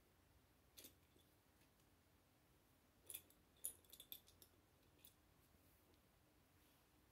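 Faint clicks of plastic Lego bricks being handled and pressed together: one about a second in, a quick run of clicks from about three to four and a half seconds, and one more near five seconds.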